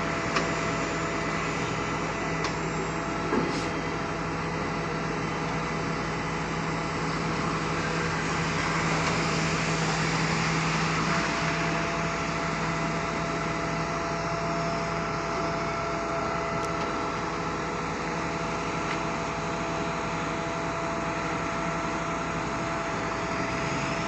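Engine and machinery of a concrete pump truck running steadily with a constant hum. One of its held tones shifts about eleven seconds in, and a couple of light clicks come near the start.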